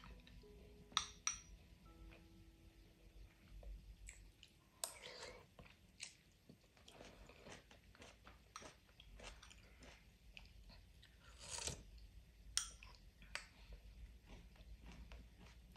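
Porcelain soup spoon scooping through thick soup in a ceramic bowl: faint wet stirring with a few sharp clinks of spoon on bowl.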